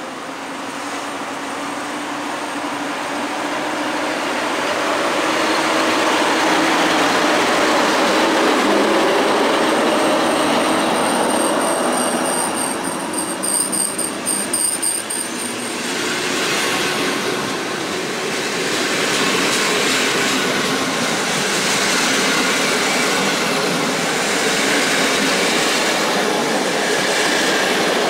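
An EP07 electric locomotive and its passenger coaches running past along the platform, the rumble of wheels on rail building over the first few seconds and then holding steady. A thin high squeal comes in partway through, with a rhythmic clatter as the coaches go by.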